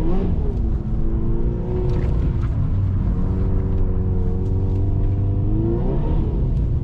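A 1996 Honda Civic's 1.6-litre SOHC four-cylinder (D16Y7) engine running with the car under way, steady at first; its revs climb about four seconds in and drop back about six seconds in.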